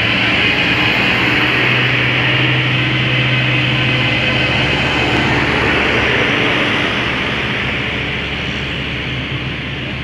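Diesel bus engine running steadily with a strong low hum, easing off and growing quieter after about seven seconds.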